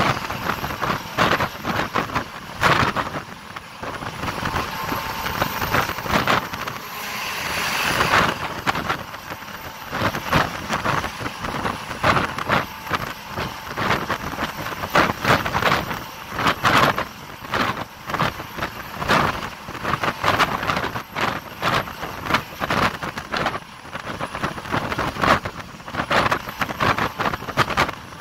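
Bus travelling at speed, heard from its side window: continuous engine and road noise, broken by frequent irregular knocks and rattles.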